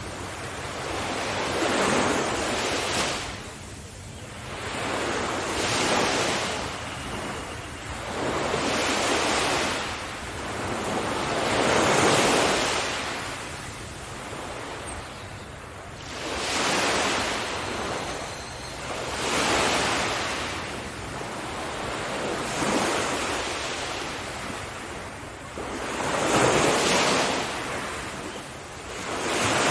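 Sea waves breaking and washing on a shore, each wave swelling and falling away every few seconds in a steady rhythm.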